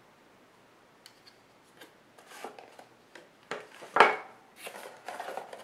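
Camera accessories and packaging being handled: rubbing and scraping with scattered small clicks, and one sharp knock about four seconds in.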